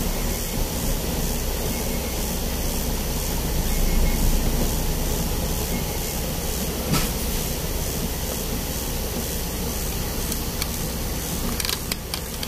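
Steady noise inside a truck cab: the truck's engine running low under a constant hiss. There is a single knock about seven seconds in and a few light clicks near the end.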